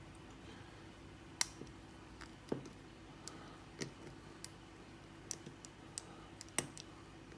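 Hook pick and tension wrench working the pin stacks of a Lockwood 334 padlock: sharp, small metallic clicks at irregular intervals, about nine in all, the sharpest a little over a second in and again near the end. The pins give multiple clicks each, which the picker takes for serrated pins.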